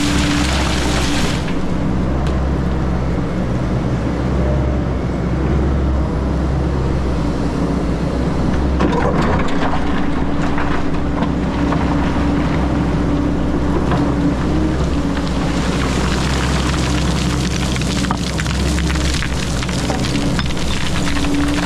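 XCMG 180 crawler excavator's diesel engine running steadily under work, with a steady low hum and a few short knocks about nine, ten and eighteen seconds in.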